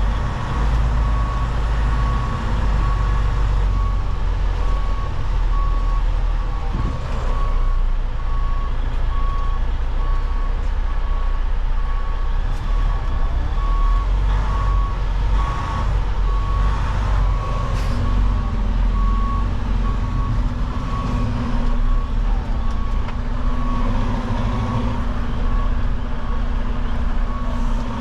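A semi truck's backup alarm beeps at a steady, even pace over the low rumble of its diesel engine as the heavily loaded tanker reverses. From about two-thirds of the way in, a steady low hum joins as the engine works harder.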